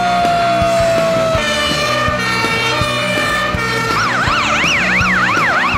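Emergency vehicle sirens over rock music with a steady drum beat. A slowly falling wail tone runs until about a second and a half in. From about four seconds in comes a fast rising-and-falling yelp.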